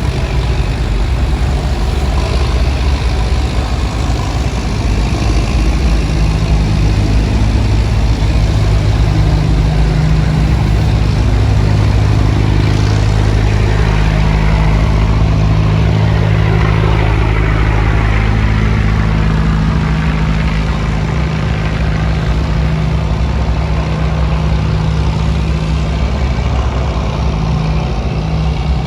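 Diesel engine of a bottom-trawl fishing boat running steadily, with a continuous rushing noise over it; the low engine note grows stronger about six seconds in.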